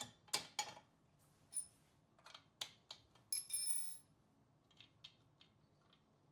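Light metallic clicks, taps and clinks of steel parts and a tool as the handle's retention bolt is secured on a steel belt squat attachment, with a brief metallic ring about three and a half seconds in.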